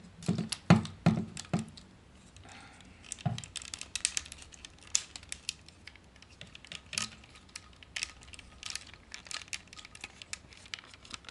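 Plastic clicks and taps from a Takara Masterpiece MP-36 Megatron figure being handled as its stiff hip joint is worked to collapse the legs. A cluster of sharper clicks in the first two seconds, then lighter scattered clicks.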